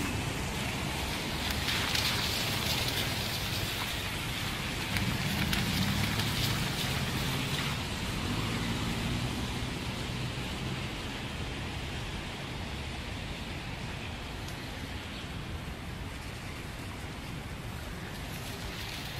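Steady hiss of street traffic on a wet road, with a vehicle engine humming louder from about five to nine seconds in.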